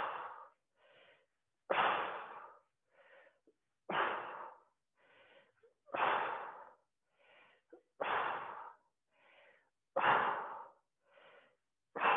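A woman's forceful exhales, about one every two seconds, each starting suddenly and trailing off, with a softer, shorter inhale in between: breathing hard in rhythm with the repetitions of a banded side-lying leg lift.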